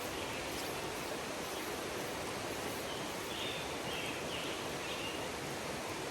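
Steady rushing of a flowing trout stream, with a few faint high chirps about halfway through.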